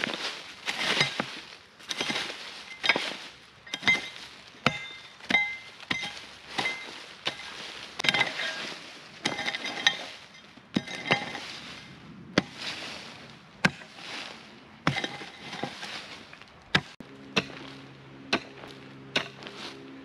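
Mattock chopping into rocky soil, about one strike a second, the steel head clinking off stones. Near the end the strikes give way to quicker light clicks and a low steady hum comes in.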